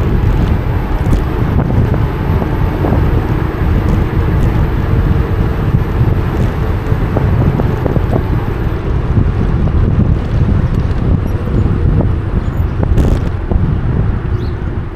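Wind buffeting the microphone of an action camera on a moving e-bike, a loud, steady low rush of riding noise with a few light knocks from the road.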